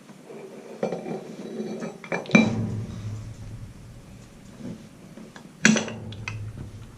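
Small metal cam pins clinking and tapping against the power feed's metal cam plate as they are handled and set into position, with two sharper clinks, one about a third of the way in and one later on.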